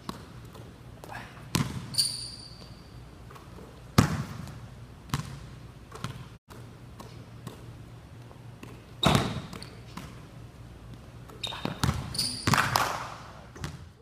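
Basketball bouncing on a court, a scattering of separate sharp bounces and thuds with a busier cluster near the end.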